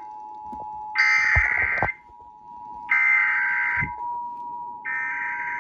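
Emergency Alert System SAME header: three harsh digital data bursts, each about a second long and about a second apart, the coded header that opens a Required Monthly Test. A steady two-tone EAS attention signal sounds underneath throughout.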